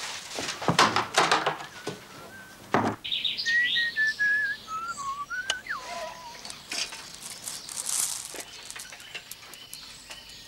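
Paper rustling as handwritten letters are gathered up, then a bird singing a string of clear whistled notes that step down in pitch, with higher chirps around them. Later come a few sharp clicks and rattles from a bicycle being handled.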